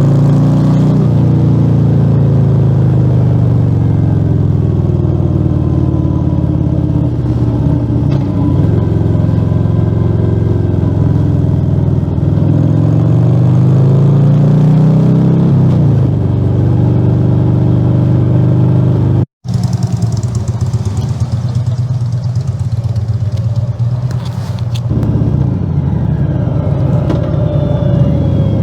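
Harley-Davidson Fat Bob 114's Milwaukee-Eight V-twin running loud through Rinehart slip-on mufflers with the dB killers removed, heard from on the moving bike. The engine pitch rises and falls several times with throttle and gear changes. The sound cuts out for a split second about two-thirds of the way through.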